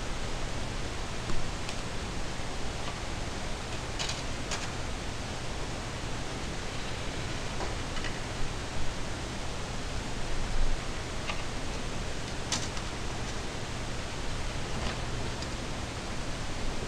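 Steady hiss with a few short sharp clicks, about four seconds in, again just after, and near the end, as blank CDs are set into the trays of LG DVD writers and the trays are pushed shut.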